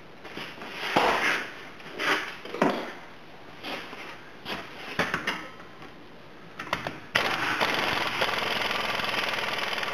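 An impact wrench hammering on the rear differential's pinion nut, starting suddenly about seven seconds in and running steadily for about three seconds as it takes the nut off. Before it come a few short knocks and rustles.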